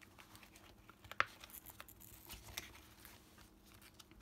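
Clear plastic Hobonichi cover-on-cover being handled as a fabric planner cover is slid into it: faint crinkling and rustling of the soft plastic, with a single sharp click about a second in.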